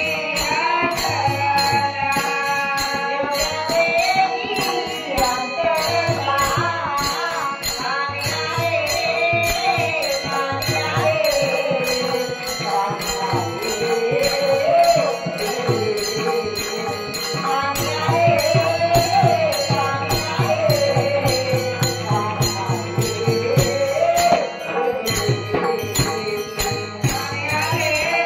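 A woman singing a Marathi devotional gaulan in a gliding melody, over a steady held drone, with a drum and jingling hand cymbals keeping an even beat.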